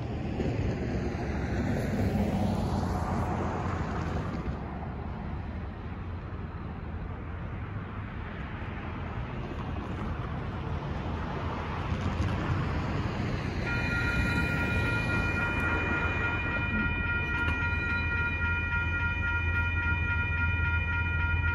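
Railroad grade-crossing warning bells start ringing about two-thirds of the way in as the crossing activates for an approaching train. Before that, cars pass over the crossing, over a steady low hum.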